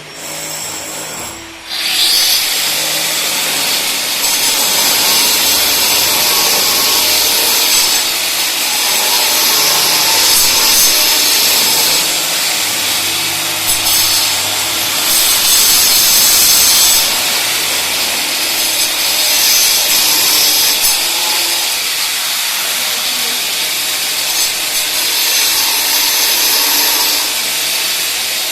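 A power tool running steadily under load, with a high, hissing whine. It starts abruptly about two seconds in and keeps going with slight swells in level.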